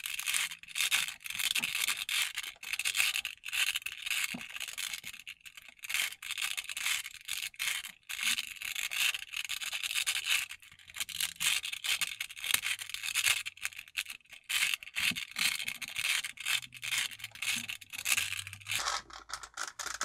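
A 5x5 Rubik's Cube's plastic layers being twisted quickly by hand, giving a fast, continuous run of scraping clicks.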